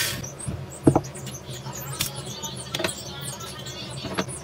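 Small plastic parts being handled: scattered light clicks and scratches, with one sharper click about a second in.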